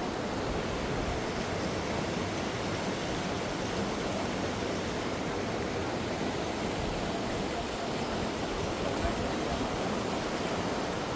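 Floodwater rushing steadily across a road ford.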